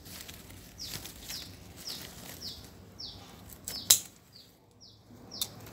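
A small bird calling a short, high, falling chirp over and over, about twice a second. A sharp click stands out about four seconds in, with fainter clicks and leaf rustle close to the microphone.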